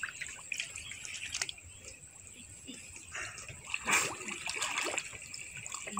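Muddy canal water splashing, trickling and dripping as people wade and stir it up, with a louder splash about four seconds in as a handful of mud and weeds is lifted out of the water.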